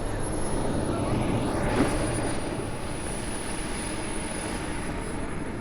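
Radio-controlled model turbine jet flying past: a high turbine whine that drops slightly in pitch as the rushing engine noise swells, loudest about two seconds in, then eases off.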